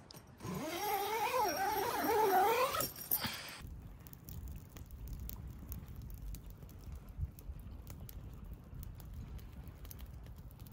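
A drawn-out, wavering cry that rises and falls in pitch for about three seconds and cuts off suddenly. A low rumbling noise with occasional clicks follows.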